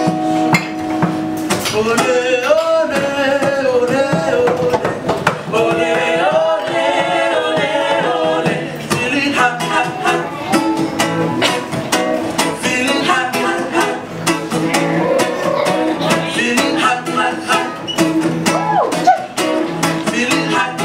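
Acoustic guitar strumming a steady rhythm, played live through a PA, with voices singing over the chords.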